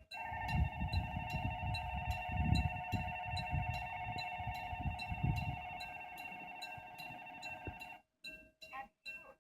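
Railroad crossing warning bell ringing in an even beat of about two to three strikes a second. A sustained pitched tone and a low uneven rumble sound with it and both cut off sharply about eight seconds in.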